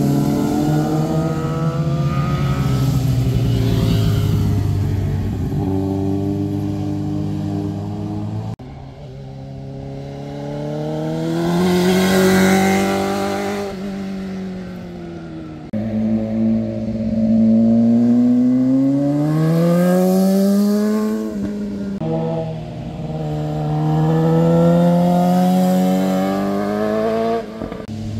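Motorcycles passing one at a time through a hairpin bend, engines running with their pitch rising and falling as riders back off and accelerate through the turn. The sound cuts abruptly between passes several times.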